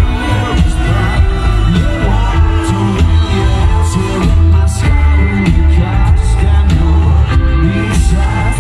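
Live rock band playing loud through a festival PA, with a male voice singing over electric guitar, keyboards and drums. The sound is bass-heavy, as heard from within the crowd.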